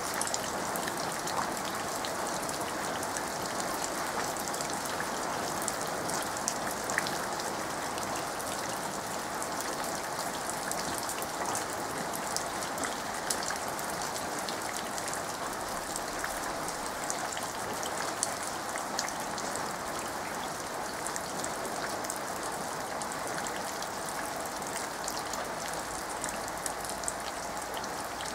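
Steady rain falling into a muddy puddle and onto wet soil and leaves: an even patter with many small, sharp drop ticks scattered through it.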